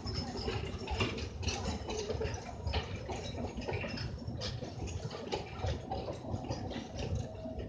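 Open-sided tourist railway passenger cars rolling past, with a steady low rumble and irregular clicks and knocks from the wheels and running gear.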